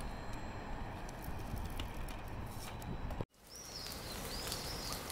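Steady outdoor background noise with a few faint clicks, cutting off abruptly about three seconds in. A different outdoor ambience fades in, with birds chirping repeatedly in short high arched notes.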